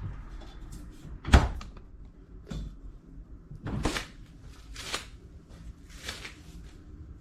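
Fridge door and drawers being handled: a sharp knock about a second and a half in, then three short swishing scrapes.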